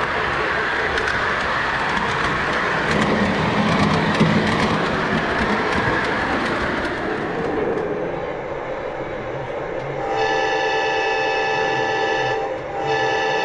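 O scale model train running on its track, a steady rolling rumble that eases off after several seconds. About ten seconds in, the locomotive's horn sounds a long multi-tone blast, breaks briefly, and sounds again.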